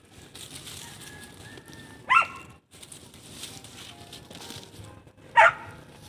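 A dog barking twice, two short single barks about three seconds apart.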